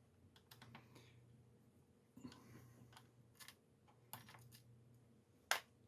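Faint, scattered clicks and light taps from handling a plastic laptop during disassembly, with one sharper click near the end.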